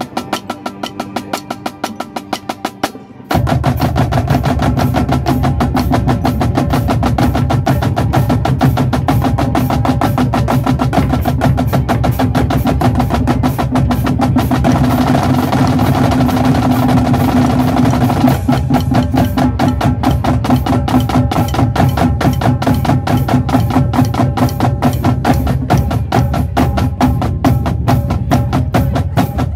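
Marching drumline of snare drums and bass drums playing. A light, even run of strokes lasts about three seconds, then the full line comes in loud with fast, dense snare strokes over bass drum hits.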